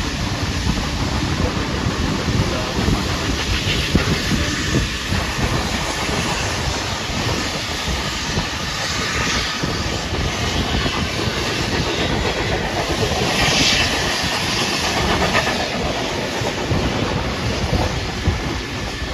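Train hauled by steam locomotive 3801 running at speed, heard from an open carriage window: the wheels clatter over the rail joints amid a steady rush of wind and hiss. The hiss swells a few times.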